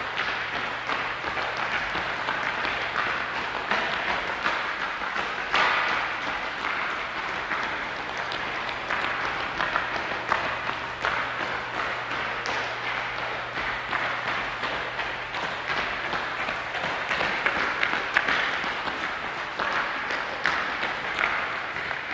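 Many people running across a large gymnasium's floor, heard from a distance: a dense, continuous patter of footfalls blurred together by the hall's echo, with now and then a louder knock. A steady low hum runs underneath.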